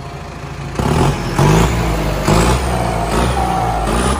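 New Holland 7740 tractor's turbocharged diesel engine revving, loud. It jumps up about a second in and then surges repeatedly as the throttle is blipped.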